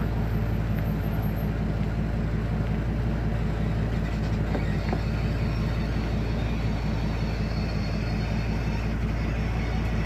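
Vehicle engine running with a steady low rumble.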